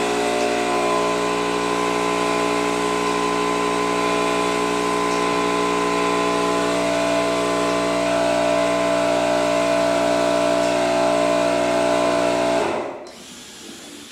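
Electric drill motor running steadily while pre-drilling screw and dowel holes in the hive-box boards, its pitch shifting slightly under load. It is switched off near the end and winds down.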